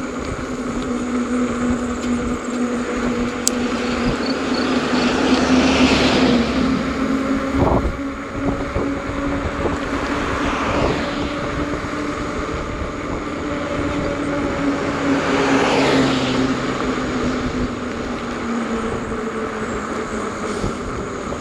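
Folding electric bike with a 750 W motor and 4-inch fat tyres being ridden: a steady hum under rushing road and wind noise. The noise swells three times, as of cars passing.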